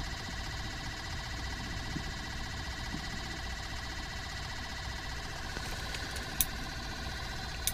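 Minnow bucket's small aerator pump buzzing steadily, with an even electric whine of several pitches held level throughout. Two faint clicks come through, one about six seconds in and one near the end.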